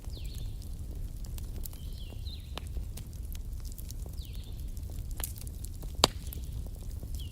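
Campfire crackling: a steady low rumble with scattered sharp pops, one louder pop about six seconds in. A few faint high chirps are heard over it.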